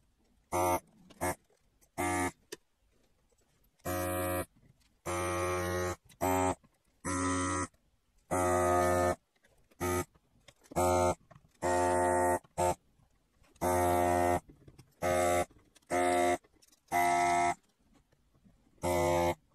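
Vacuum pump of an electric desoldering gun buzzing in over a dozen short triggered bursts, each a fraction of a second to about a second long with silent gaps between, as solder is sucked off the circuit board's pins one joint after another.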